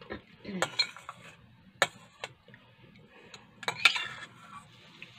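Metal spoon clinking and scraping against a stainless steel bowl, a few sharp clicks with the loudest a little before four seconds in. Between them come softer eating noises as spoonfuls are taken.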